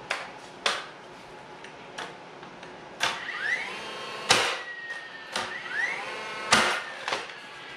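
Cordless framing nailer firing nails into timber plates, a series of sharp bangs with its motor whining up between some of the shots. The nails are being tacked into the bottom plate of the wall frame.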